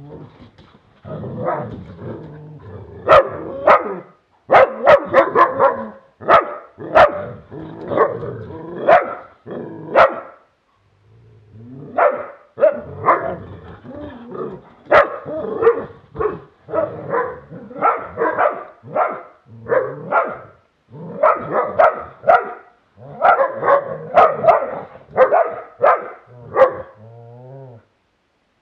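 Dogs barking in play as they romp together, in rapid runs of short barks with two brief pauses.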